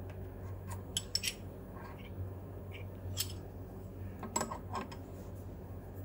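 A few light metallic clinks and taps over a steady low hum: a quick cluster about a second in, another near three seconds, and a pair around four and a half seconds.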